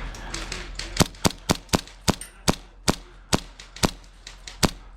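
Airsoft gas blowback pistol firing a run of about eleven sharp semi-automatic shots, roughly two to three a second, starting about a second in.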